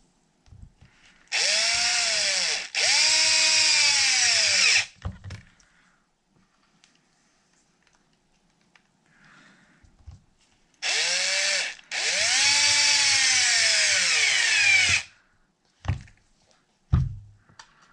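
Power drill driving screws around the beadlock ring of an RC truck wheel: two pairs of runs, each rising in pitch as the motor spins up and sagging as the screw tightens. Two short knocks near the end.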